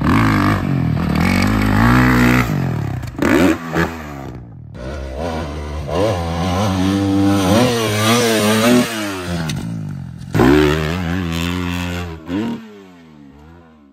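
Dirt bike engine revving hard, its pitch climbing and dropping as the rider works the throttle. It breaks off suddenly a few seconds in, comes back, surges again near the end and then fades away.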